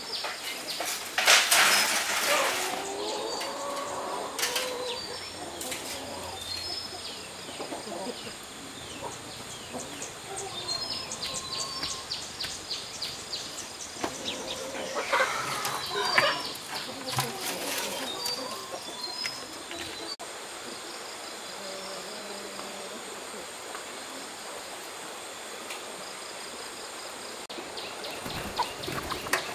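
Small birds chirping again and again, with chickens clucking. Two loud rustling flurries, tagged as wing-flapping, come about a second in and again around fifteen seconds in.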